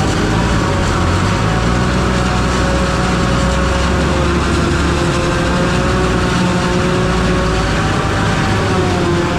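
Truck engine running steadily: a constant low drone with a steady hum of engine tones above it.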